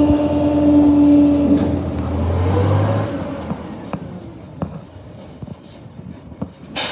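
Rear-loader garbage truck running its compaction cycle: a steady whine over a low engine rumble that dies away about two to three seconds in. Then a quieter stretch with scattered clicks, and a sudden loud noise near the end.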